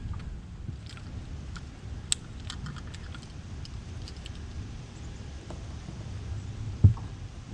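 Handling noises in a fishing boat: scattered light clicks and taps over a steady low rumble, with one louder thump near the end.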